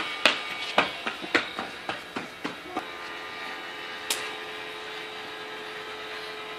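Small battery-powered toy bubble-machine motor whirring steadily, with a run of light taps and clicks over the first three seconds.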